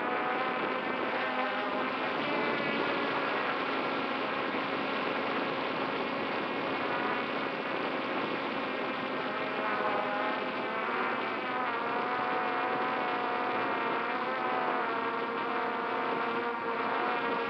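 Multirotor drone's motors and propellers buzzing, heard up close from its own onboard camera. The pitch wavers up and down as the throttle changes while it hovers.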